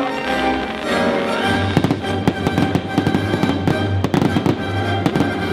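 Fireworks going off in a rapid barrage of sharp bangs and crackles, starting about a second and a half in, with a low rumble beneath, over music.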